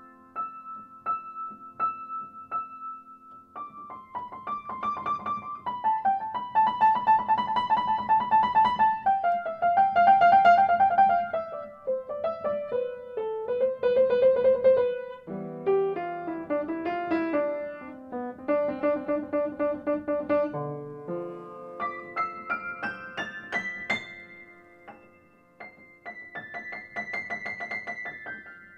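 Background piano music: a melody of quick repeated notes over sustained chords.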